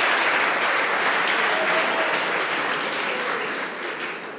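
Audience applause, a dense steady clapping that fades away near the end.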